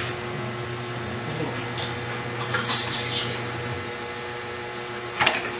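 Crabs and vegetables simmering in coconut milk in a wok: a steady hiss. Near the end, a few sharp clinks of a metal ladle against the wok.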